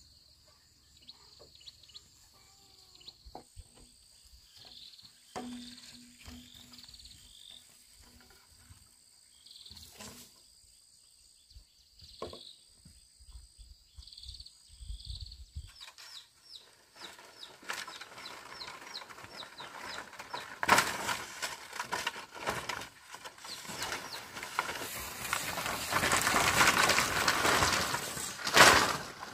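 Faint bird and insect calls with scattered light clicks. Then, from about halfway, long bamboo poles drag and scrape through grass and knock against each other, getting louder toward the end, with a sharp knock near the end.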